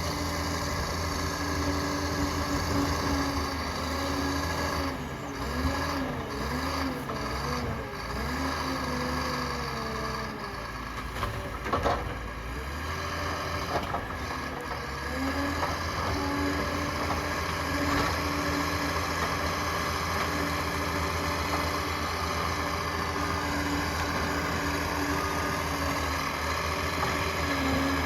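Liebherr PR 746 crawler dozer's diesel engine running steadily while working, with a wavering whine for a few seconds early on and a few sharp clanks near the middle.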